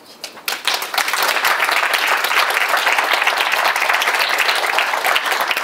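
Audience applauding: a few scattered claps at first, swelling within about a second into steady, full applause.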